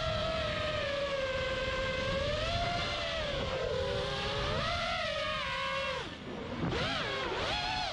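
Brushless motors and three-blade props of an FPV freestyle quadcopter (Lumenier 2206 2450kv motors on an FT210 frame), heard from its onboard GoPro: a whine whose pitch rises and falls with throttle, over wind rumbling on the microphone. About six seconds in, the whine drops away briefly as the throttle is cut, then swoops up and down in quick throttle punches.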